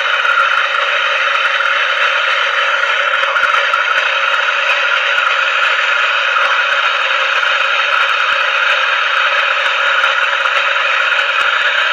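Handheld MAP-gas torch burning with a steady hiss as it heats a copper pipe joint on a refrigerator compressor for brazing.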